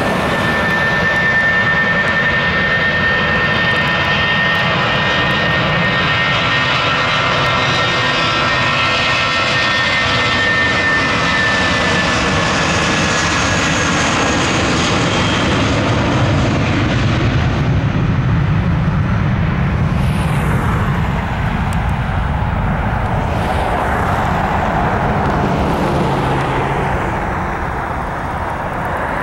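Airbus A319 jet engines at takeoff power during the takeoff roll: a loud steady roar with a high whine that slides slightly lower in pitch over the first fifteen seconds or so. After that the whine fades and a rougher, deeper roar remains, easing off near the end.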